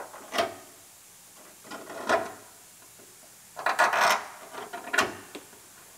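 A hand scribe scratching and scraping against the sheet-steel inner rocker panel of a 2006 GMC Sierra cab, marking a cut line. Four short scrapes, the longest and loudest a little under a second long, about four seconds in.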